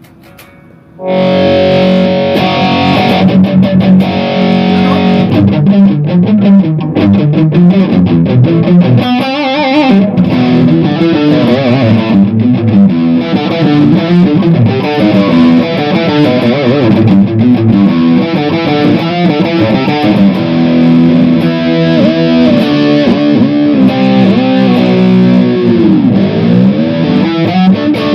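Electric guitar played with high-gain distortion through the Lekato Tank G Black multi-effects pedal's Mesa Boogie Dual Rectifier amp model. The heavy riffing starts abruptly about a second in, with string bends near the end.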